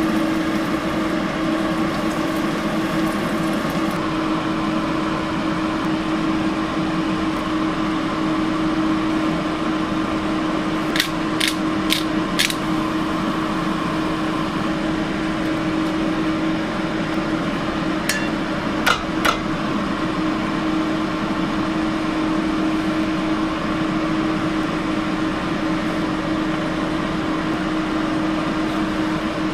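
Steady mechanical hum of a kitchen exhaust fan with one constant tone throughout. A few sharp clinks cut through it: four in quick succession a little before the middle, and three more a few seconds later.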